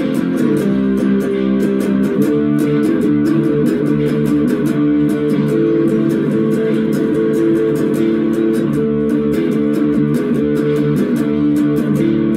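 Electric blues-rock: a white Gibson SG electric guitar playing through an amp over a backing track with a steady programmed beat, the sharp ticks coming about three to four times a second.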